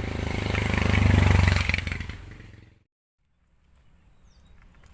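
A motor vehicle passing on the road, its engine growing louder to a peak about a second in, then fading away. The sound cuts out completely near three seconds, leaving only faint background.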